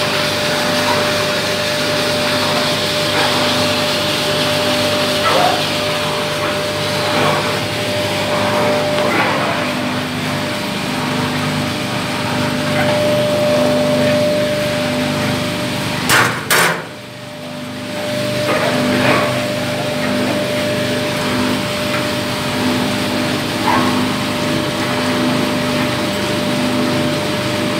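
A gas-fired drum coffee roaster running with a steady hum and a held whine from its drum motor and blower, loaded with green coffee beans. Occasional knocks and scrapes come from the metal sample trier being worked in the drum front, with a sharp double click about halfway through.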